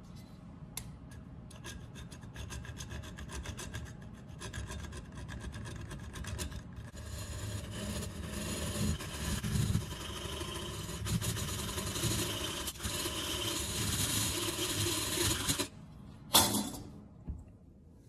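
Mini hacksaw blade sawing back and forth across a hardened steel padlock shackle, metal rasping on metal. The strokes start spaced apart, then run fast and steady, and stop abruptly near the end, followed by a single sharp knock.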